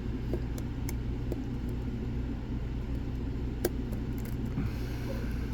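A few faint metallic clicks of a lock pick working the pins of a Lockwood 215P40 lockout-tagout padlock, the clearest about three and a half seconds in, over a steady low rumble.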